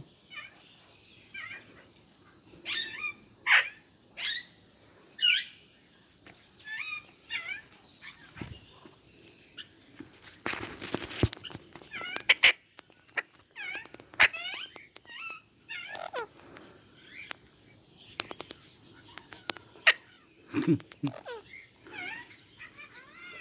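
Parrots giving short, scattered squawks and chirps, some louder than others, over a steady high insect drone.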